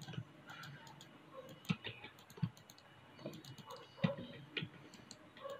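Soft, irregular clicks of a computer mouse and keyboard, a handful of separate clicks spread across the few seconds.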